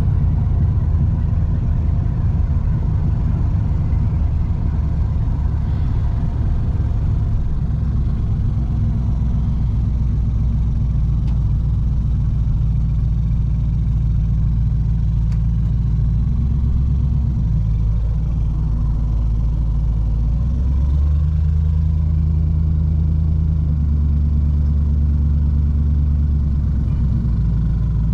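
Vehicle engine and road noise heard from inside the cab while driving: a steady low drone whose pitch shifts a few times in the second half as speed or gearing changes.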